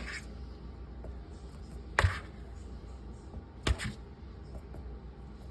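Two short, sharp knocks, one about two seconds in and a quick double one near four seconds, over a low steady hum.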